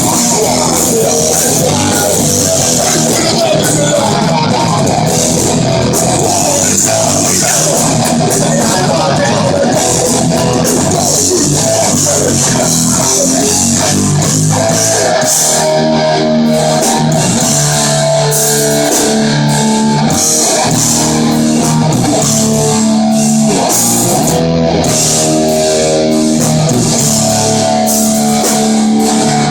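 Live heavy metal band playing an instrumental passage, with distorted electric guitars, bass guitar and drum kit at a loud, steady level. About halfway through, the guitars move to long held chords.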